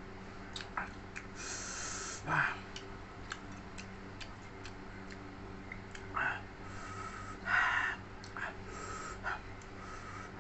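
Close-up mouth sounds of eating: wet chewing clicks and lip smacks, broken by several short noisy bursts like sharp breaths, over a steady low hum.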